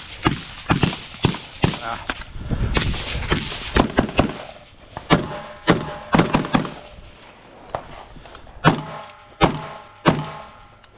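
Gunfire from several shooters at once: rapid, irregular, overlapping shots from pistols and rifles, a few followed by a brief ringing tone.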